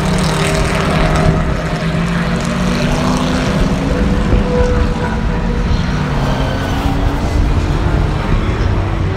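Trans Am race car's V8 engine running hard at speed, a loud drone whose pitch climbs slowly as the car accelerates away.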